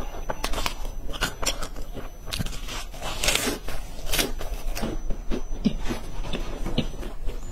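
Close-miked crunching and chewing of crispy chocolate-coated stick snacks, a dense run of sharp crunches.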